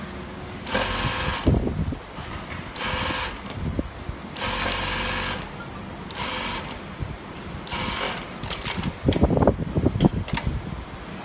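Industrial chain-stitch bottom hemming machine sewing a denim jeans hem, running in short bursts of about a second with pauses between. A cluster of clicks and knocks comes near the end.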